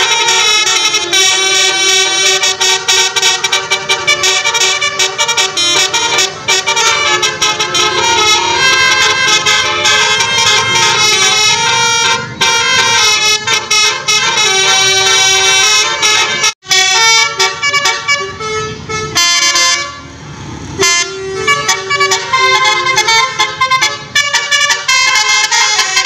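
Basuri 'telolet' multi-tone musical air horns on tour buses playing quick, loud melodic tunes, several horn notes at once changing rapidly. The tune cuts out abruptly about two-thirds of the way through, then resumes after a brief noisier stretch.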